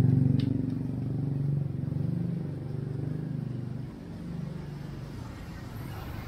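A motor vehicle's engine passing close by, loudest at the start and fading away over the first four seconds.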